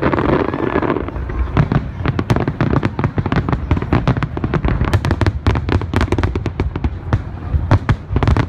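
A dense fireworks barrage: many aerial shells bursting in rapid succession, a fast crackling and popping over a low rumble that thickens after the first second or two.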